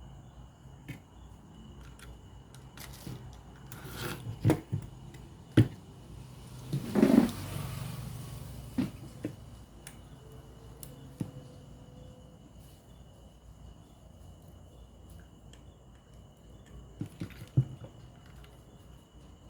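Scattered knocks and clicks, with a brief louder rustle about seven seconds in and another cluster of clicks near the end, over a faint steady high-pitched tone.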